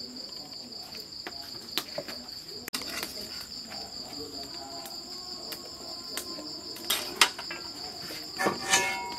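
Crickets chirring in a steady high-pitched trill, with a few sharp clicks and knocks of kitchen utensils, the loudest of them in the last few seconds.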